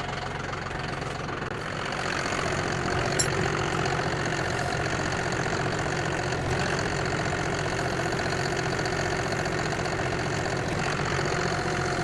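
Tractor engine running steadily while it lifts a heavy sign; the engine gets a little louder about two seconds in.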